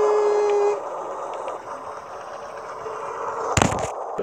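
Toy Thomas train sounding a short steady-pitched whistle toot, then running on with a steady motor-and-wheels noise. A loud sharp knock comes near the end.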